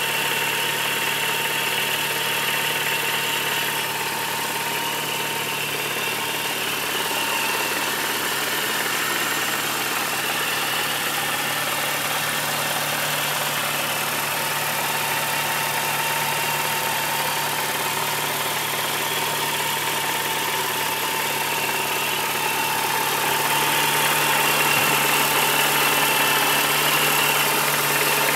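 2003 Mini Cooper S supercharged 1.6-litre four-cylinder engine running steadily at idle, with the tapping/knocking noise its owner is trying to track down. It gets a little louder near the end.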